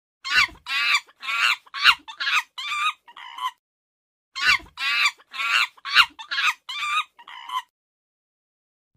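Animal cries: a run of about seven shrill, wavering calls, about two a second, then after a short pause the same run again with the same pattern, like a repeated clip.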